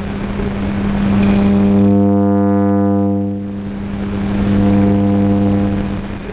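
Electron beam irradiator hum: a loud, steady low tone with a stack of overtones. It swells to its loudest about two seconds in, dips briefly, then swells again before fading near the end.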